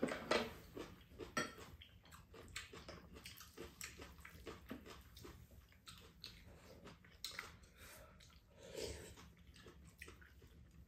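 Close-up eating sounds of two people having fried rice: soft chewing and mouth noises with small irregular clicks of spoons and chopsticks against ceramic bowls.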